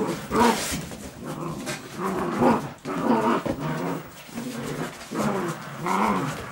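Belgian Shepherd (Groenendael) puppies growling in rough play, a string of short growls about one a second.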